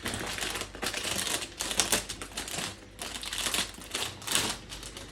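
Crinkling and crackling of a flower bouquet's plastic wrapping as it is handled and cut open, in irregular bursts.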